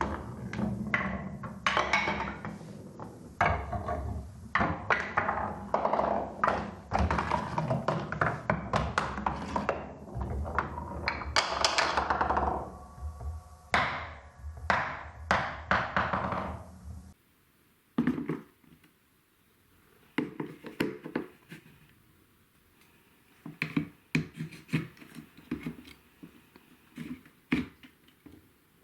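Marbles rolling and clacking down a plastic TrixTrack marble run, a dense run of clicks and knocks. About seventeen seconds in it drops suddenly to a much quieter stretch of scattered clicks and small clusters of taps.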